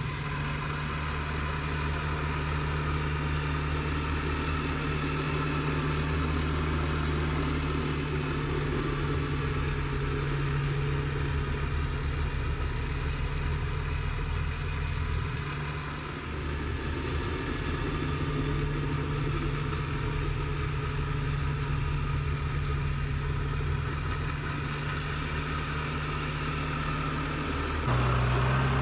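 Kubota BX2230D compact tractor's three-cylinder diesel engine running steadily. Its level dips briefly about halfway through, and its low tone shifts just before the end.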